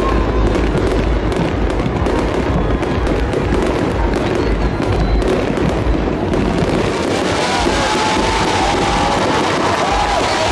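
Fireworks display: many rapid shell bursts and crackles, densest in the first six seconds.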